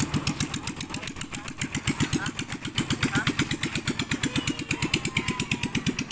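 Small single-cylinder engine idling, an even chugging of about nine beats a second.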